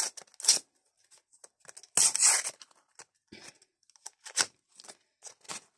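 A Panini Premier League 2024 trading-card pack torn open by hand. There is one longer rip about two seconds in, with short crinkles and rustles of the wrapper before and after it.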